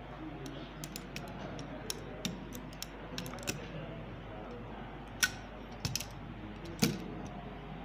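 Scattered light clicks and knocks, with a few louder knocks a little past the middle, over a faint steady hum.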